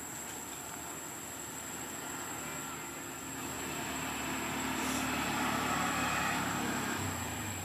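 A road vehicle passing by, its engine and tyre noise swelling to a peak about six seconds in and then fading.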